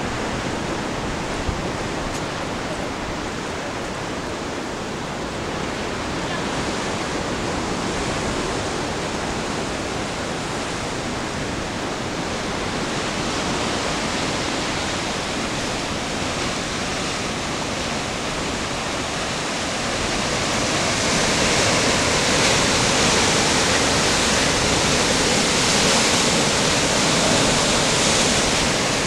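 Ocean surf washing and breaking over shoreline rocks: a continuous rushing noise that grows louder in the last third.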